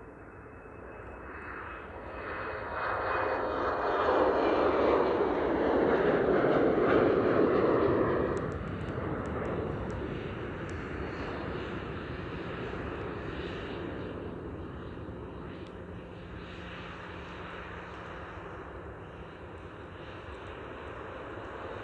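An Embraer E195LR's twin turbofans at takeoff thrust, the noise building to a peak over the first several seconds as the jet lifts off and climbs past. About eight seconds in this gives way to a Boeing 737-800's engines at low taxi power: a quieter, steady jet noise with a faint low hum.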